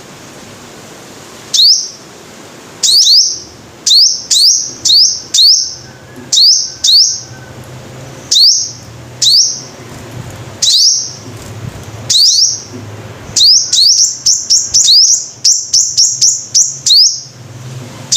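Sunbird ('five-colour' sunbird, hút mật 5 màu) calling: sharp, high, upward-sweeping chirps, single or in quick pairs, coming every second or so and then crowding into a fast run of chirps near the end.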